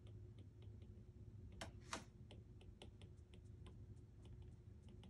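Faint ticks and taps of a plastic-tipped stylus writing on a tablet's glass screen, several a second, with two slightly longer, louder scratchy strokes just before two seconds in, over a low steady hum.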